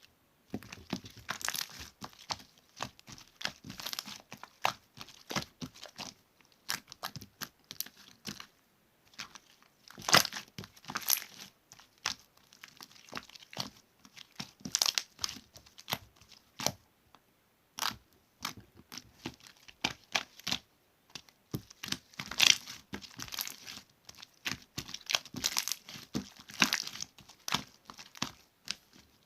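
Slime being squeezed and folded by hand, giving a steady run of irregular crackling pops and clicks, with brief pauses about nine and eighteen seconds in.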